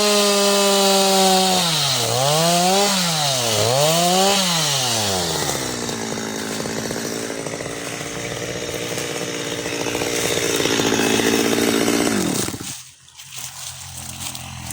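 Stihl MS 230 two-stroke chainsaw running at high revs, blipped down and back up a few times, then dropping to a lower steady note about five seconds in. Near the end the engine is switched off and stops abruptly.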